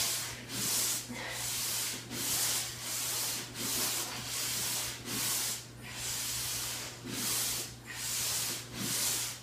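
Paper-plate sliders scraping back and forth on carpet under the heels during bridged hamstring curls, a rhythmic rasping at about one stroke a second.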